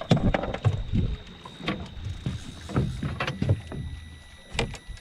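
Irregular knocks and thumps, with a few sharp clicks and a louder knock near the end, as a freshly caught fish is handled.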